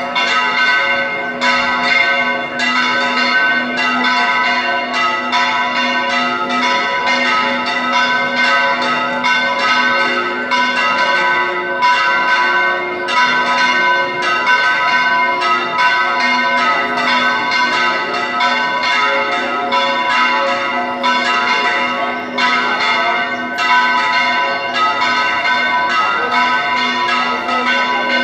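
Church bells in a tower that was once a minaret, ringing a continuous fast peal. The strokes come about two or three a second, and each bell's hum rings on under the next strike.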